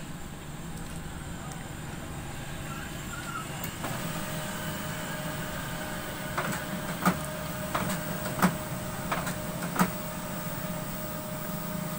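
HP LaserJet Pro MFP M126nw laser printer starting a copy: its motor comes on with a steady whine about four seconds in. Then come six sharp clicks about 0.7 s apart as the paper pickup tries and fails to draw a sheet from the tray. The repairer puts the failed pickup down to dust and toner powder making the pickup roller slippery.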